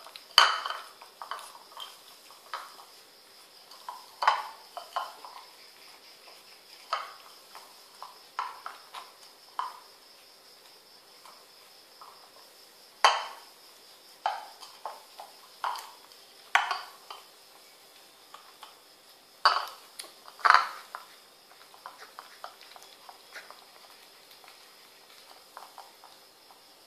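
Ceramic food bowl knocking and clinking on a tile floor as two kittens jostle over it while eating. The clinks come irregularly, a few of them sharp and loud.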